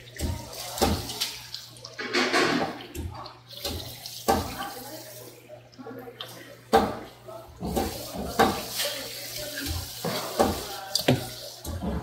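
Tap water running and splashing over a striped beakfish (rock bream) on a plastic cutting board, with irregular sharp scraping and knocking strokes as the fish is scaled and worked with a hand scaler and knife. A steady low hum runs underneath.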